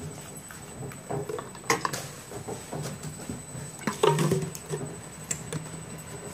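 Plastic bottles of dishwash liquid knocking and rattling as they are handled and set down on a wooden table, with a low hum underneath. The loudest knocks come about two seconds in and again about four seconds in.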